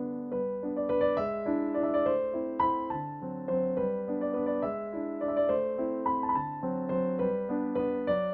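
Background piano music, a melody of steady notes several to the second.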